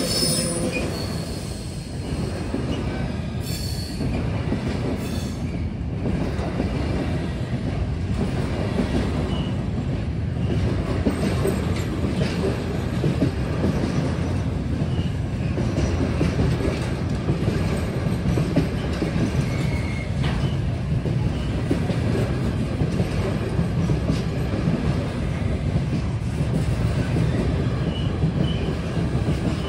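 Container freight train rolling steadily past over a level crossing: a continuous rumble and rattle of wagon wheels on the rails, with a few brief faint wheel squeals.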